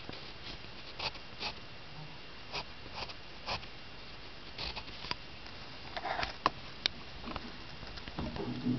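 Pencil scratching on lined paper in short, separate strokes, spaced irregularly and bunched together about six seconds in. A brief rustle of handling near the end.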